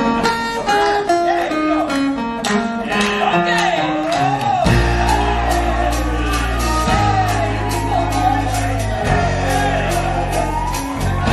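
Live band and male singers performing a stage-musical number, with acoustic guitars and piano to the fore. A falling run of notes opens it, then about four and a half seconds in a heavy bass comes in under the singing.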